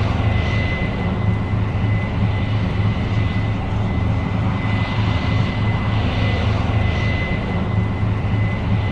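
Case IH 8230 Axial-Flow combine running steadily under harvest load: a deep, even engine drone with a thin, steady high whine over it.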